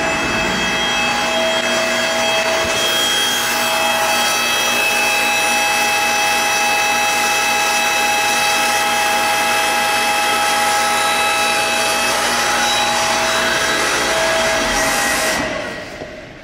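FPEC vacuum paddle blender's motor and pump machinery running under test, a steady loud machine noise with a whine of several steady tones. It winds down about fifteen seconds in.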